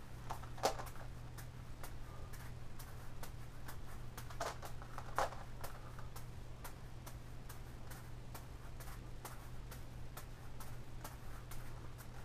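Irregular light clicks and taps from the plastic Gigaminx puzzle being turned and juggling balls landing in the hand, a few louder ones about half a second in and near the middle, over a steady low hum.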